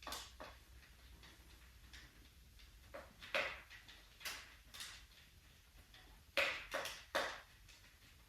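A series of short, irregular knocks and clicks of hard objects being handled, about nine in all, with the loudest cluster of three near the end.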